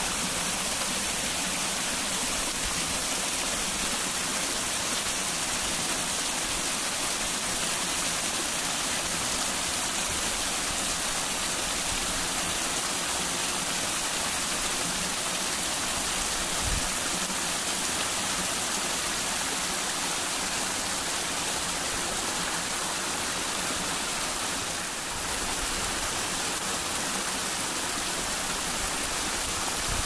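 Small waterfall of thin streams spilling down a rock face: a steady, even rush of falling water.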